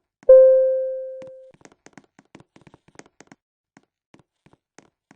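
A single loud ringing tone that starts suddenly, like one stroke of a chime, and fades out over about a second. Faint scattered clicks follow.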